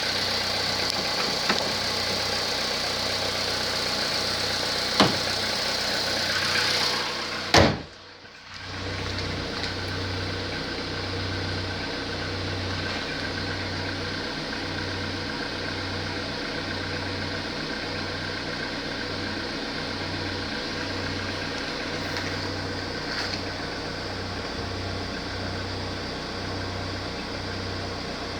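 Volkswagen Polo Sedan's 1.6-litre four-cylinder petrol engine idling, which the owner suspects of piston knock, with a few light clicks and one loud knock about seven and a half seconds in. After a brief dip, the engine sound goes on as a steadier hum with a slow low pulsing beat.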